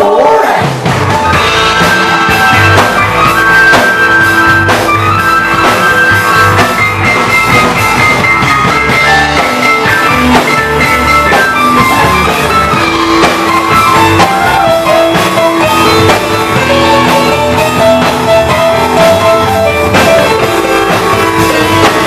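Live rock band playing loud and steady: electric guitar, drum kit and electric keyboard.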